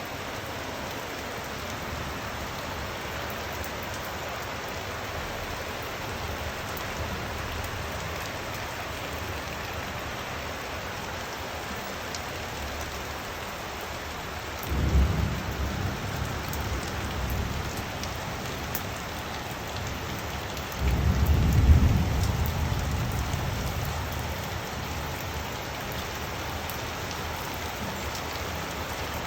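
Steady rain falling, with two claps of thunder: one breaks suddenly about halfway through, and a louder one follows about six seconds later and rumbles on, fading over several seconds.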